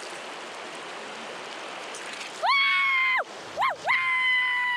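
Fast-flowing river water rushing steadily. Two and a half seconds in, a man gives long, high-pitched whooping yells: one held call, a short yelp, then a second long call that slowly slides down in pitch. The yells are the loudest sound.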